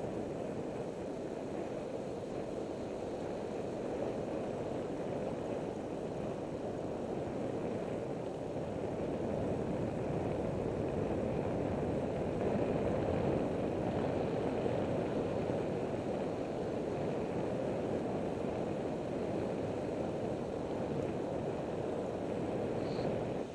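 Steady rushing wind over the microphone and road noise from a moving bicycle, with no distinct events, growing slightly louder about halfway through.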